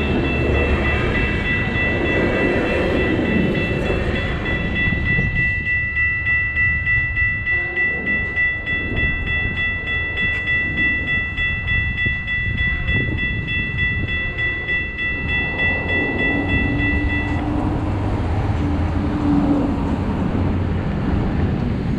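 Railroad grade-crossing bell ringing in a fast, even rhythm while a Metrolink passenger train rumbles through the crossing and moves off. The bell cuts off suddenly about 17 seconds in, leaving lower rumbling noise.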